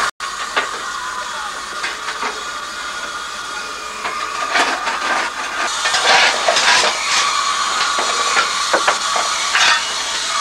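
Steam locomotive No. 5 Hamra, a narrow-gauge 0-4-4-0, standing with a steady hiss of steam. Irregular metallic clanks and scrapes sound from the cab while the fire is being stoked, and they come more often in the second half.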